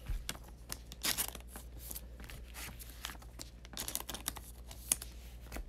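Soft crinkling and rustling of a thin plastic card sleeve as a trading card is slid into it, with scattered light taps of cards being handled.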